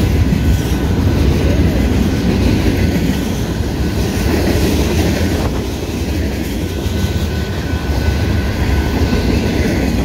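Freight train's tank cars and covered hoppers rolling past close by: a steady loud rumble and clatter of steel wheels on the rails.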